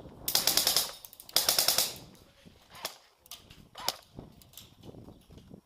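Airsoft electric rifle firing two short full-auto bursts of rapid, evenly spaced clicks in the first two seconds, followed by a few scattered fainter clicks.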